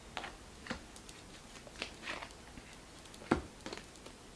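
Tarot cards being shuffled and handled: a few soft snaps and swishes of card on card at uneven spacing, the sharpest a little after three seconds in.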